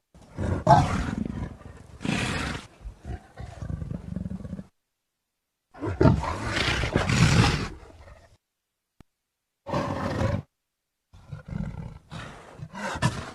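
Leopard roaring in several rough bursts, the longest at the start and again about six seconds in, with short gaps of silence between them.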